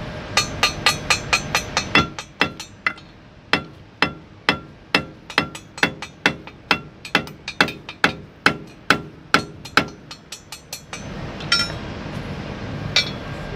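A hammer strikes the steel sprocket of a Komatsu D37EX-22 bulldozer in a long run of blows, each ringing like metal. The blows come fast at first, then steady at about two to three a second for some eleven seconds, and two single blows follow near the end.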